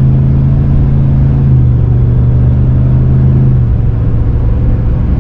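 GM 6.6 L L8T gas V8 with a Borla exhaust, heard from inside the truck's cab, pulling steadily under acceleration at around 3,000 rpm. The engine note drops about three and a half seconds in as the transmission shifts up.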